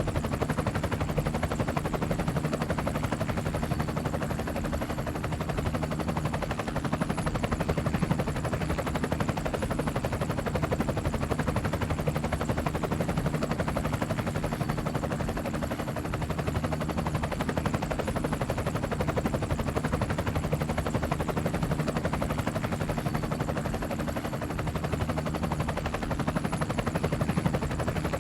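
Helicopter in flight: a fast, even chop of the rotor blades over a steady engine drone, holding level throughout.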